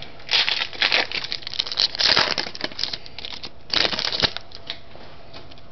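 Foil wrapper of a 2009 Donruss Classics Football card pack being torn open and crinkled by hand, in several short rustling bursts, the last about four seconds in.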